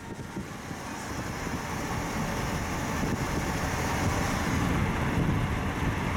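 Car driving along a road, a steady rumble of road and wind noise heard from inside the car, swelling over the first few seconds and then holding level.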